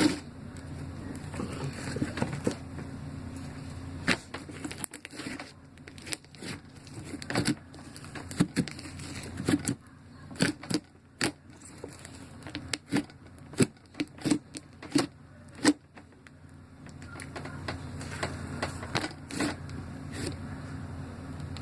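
Slime being squished and worked by hand, giving irregular sharp pops and clicks that come thickest in the middle, over a steady low hum.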